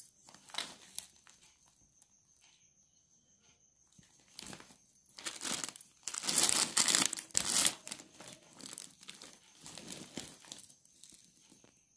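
Crinkling and rustling of a saree organizer bag's stiff, plastic-like fabric and clear plastic window as hands open its lid and shift the sarees inside, loudest a little past halfway.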